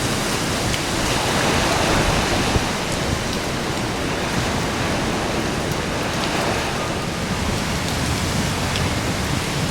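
Typhoon storm noise: strong wind buffeting the microphone with a deep rumble over a dense, steady hiss of wind and rain, a little stronger about one to two seconds in.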